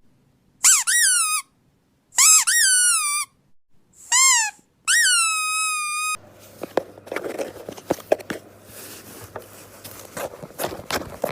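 A dog's squeaky toy squeaked four times: loud, high-pitched squeaks that each rise and fall in pitch, the last one longer and ending on a held tone. After about six seconds they stop, and soft rustling with light taps follows.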